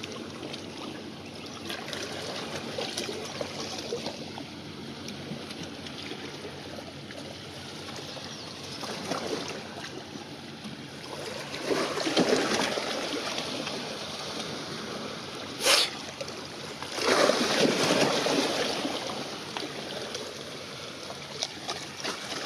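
Small waves lapping and splashing at the water's edge, swelling louder twice, with one brief sharp sound about two-thirds of the way through.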